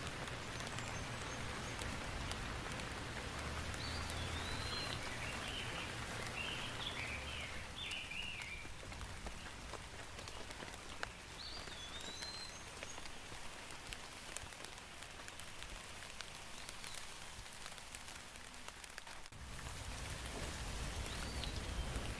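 Steady rain falling, with many separate drops pattering on surfaces. A few short chirps sound through it, and the rain briefly dips a few seconds before the end, then comes back fuller.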